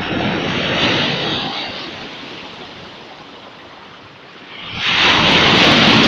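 Sea waves breaking on a pebble beach, in two surges of surf: one at the start that dies away, and a louder one that builds about five seconds in.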